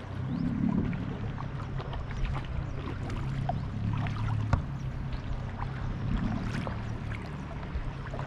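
Water splashing and dripping around a kayak as it is paddled, many small splashes and drips, over a steady low hum.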